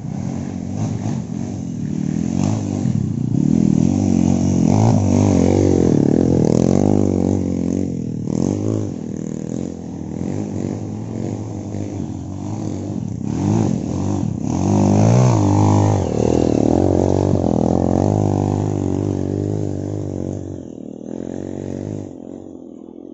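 Motorcycle engine revving hard as it climbs a steep dirt trail, its pitch rising and falling with the throttle. It is loudest twice, around five and sixteen seconds in, and fades near the end.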